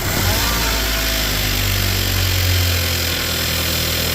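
Volkswagen Tiguan engine running steadily at idle moments after being started, the low engine note swelling a little about halfway through.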